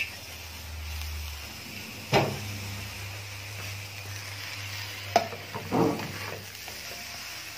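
Dry rice, vermicelli and lentils sizzling steadily in an aluminium pot while a metal spoon stirs them. The spoon knocks against the pot about two seconds in and twice more around five to six seconds. The rice has cooked dry, with no water left.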